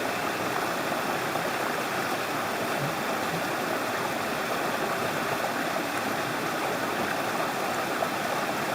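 Mountain stream rushing over rocks: a steady, even rush of running water.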